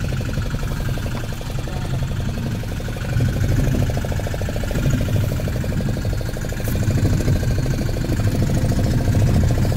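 Fishing boat's engine running steadily, a continuous low, pulsing drone.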